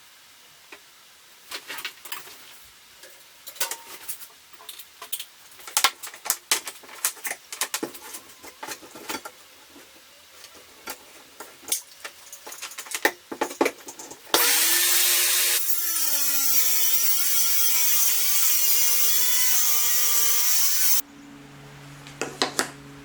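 Scattered knocks and clatter of handling for about fourteen seconds, then a circular saw runs for about seven seconds, its motor whine wavering in pitch as it cuts, and stops abruptly.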